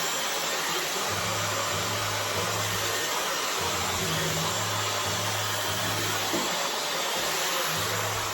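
Dyson hair dryer blowing steadily, a constant rushing airflow as wet curly hair is dried.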